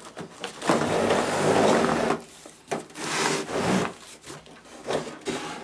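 Cardboard packaging scraping and rubbing as a metal fluorescent shop light fixture is pulled out of its box. One long scraping rub starts about a second in, followed by several shorter scuffs.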